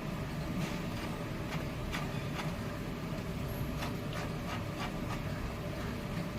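Pav buns sizzling in butter on a hot tawa: a steady low rumble and hiss with small crackles and pops scattered through it.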